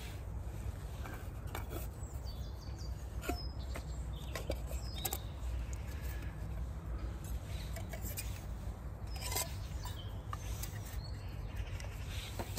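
Scattered light clinks and knocks of metal camping cookware as a pot is pulled from a fabric stuff sack and a nested mug is separated from it, over a steady low outdoor rumble.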